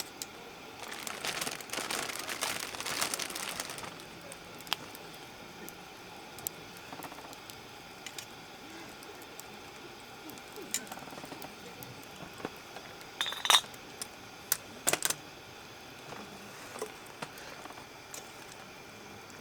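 Camp cookware being handled: a rustle lasting a few seconds near the start, then scattered light clicks and clinks of metal or glass, the loudest a short ringing clink and two sharp knocks in the second half.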